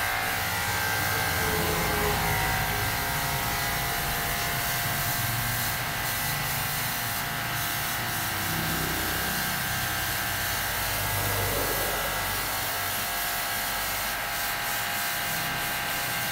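Pressure washer running steadily, its motor and pump making a hum with several fixed tones over a hiss of water jetting through the fins of a dirt-clogged car AC evaporator coil.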